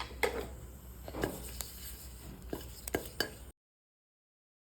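Kitchen utensils knocking and clinking against cookware, about seven irregular knocks, some with a short ring. The sound cuts off abruptly about three and a half seconds in.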